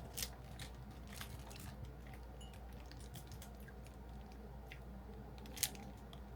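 Scattered faint clicks and crunches, with one louder click about five and a half seconds in, over a low steady hum.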